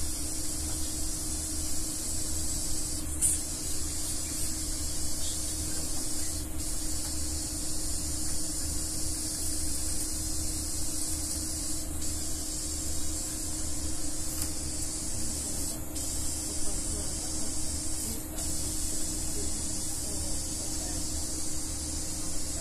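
Steady high hiss over a low hum and a faint steady tone, from endoscopy equipment running during a gastroscopy, with a few short ticks in the hiss.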